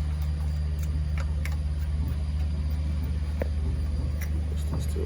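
A steady low machine hum, like an engine running, with scattered light metallic clicks and taps from a spanner working on the generator's mounting bolts.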